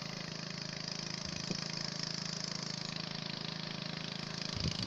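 Small engine running steadily at a constant speed, with a light tick about one and a half seconds in and a couple of low knocks near the end.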